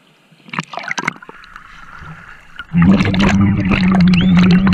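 Shallow seawater splashing around a waterproof action camera at the waterline. About three seconds in the camera goes under, giving a loud churning, gurgling underwater sound with a steady low hum.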